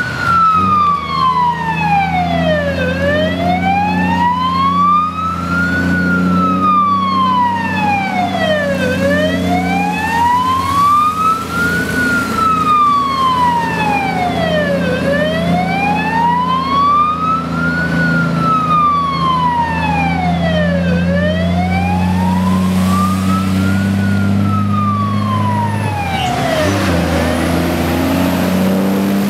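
Slow wailing siren of an oversize-load escort vehicle, rising and falling about every six seconds, over the steady low drone of heavy prime mover diesel engines. Near the end the siren stops and the passing trucks' engines and tyre hiss on the wet road come up.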